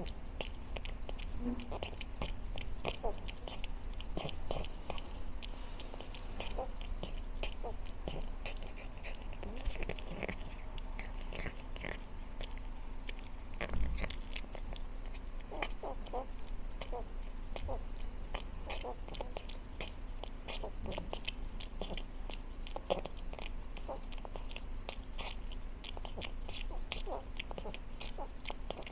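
A cat chewing and crunching food from a stainless steel bowl: a rapid, irregular run of small crunches, with one louder bump about halfway through.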